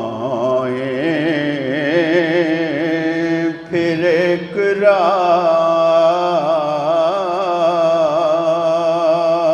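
A man singing an Urdu naat, drawing out long wavering notes with ornamented turns and a short pause for breath about four seconds in.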